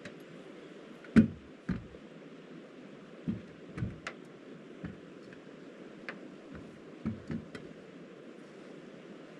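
A series of irregular knocks and taps, about nine over several seconds, the loudest a little over a second in, over a steady rushing background hiss.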